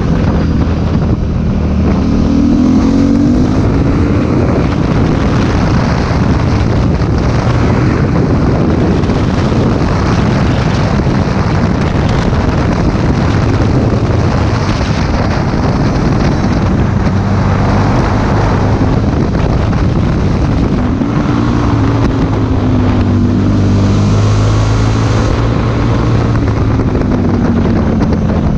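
Motorcycle engine running on the move, its pitch rising and falling with the throttle through the bends, under steady wind rush on the microphone.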